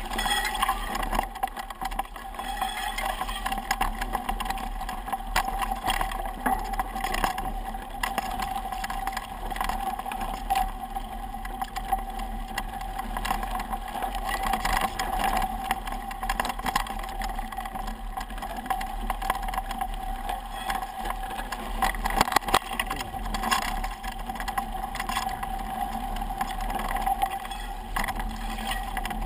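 Mountain bike rolling over a dry dirt trail, heard from a camera mounted on the bike: steady rolling noise with frequent clicks and rattles over bumps, a louder knock about three quarters of the way through, and a steady hum underneath.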